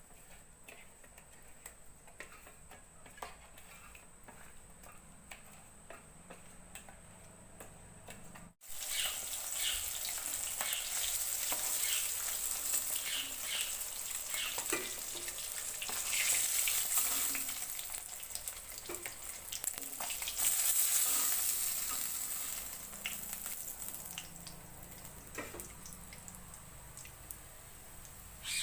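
Fish pieces frying in hot oil: a steady sizzle that starts suddenly about a third of the way in, with scattered clicks of a utensil stirring or turning them. Before that, only faint small handling clicks.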